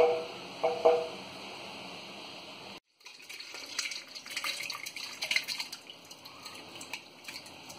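Cooked jackfruit pieces and their cooking water poured from a steel bowl into a plastic mixer-grinder jar, with irregular splashing and dripping. In the first second a wooden spoon knocks a couple of times against the aluminium pressure cooker.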